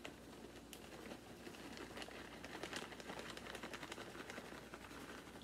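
Faint patter of shredded cheddar falling from a plastic bag onto the food in a slow cooker, with light crinkling of the bag: many small, soft ticks.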